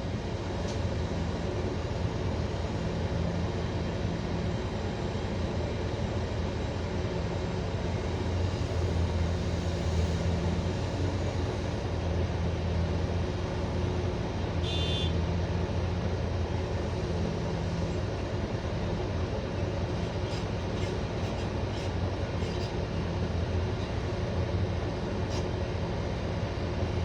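Diesel engine of a Hyundai 1250-9 excavator running steadily, a low even drone, a little stronger for several seconds mid-way, with a short high beep about fifteen seconds in.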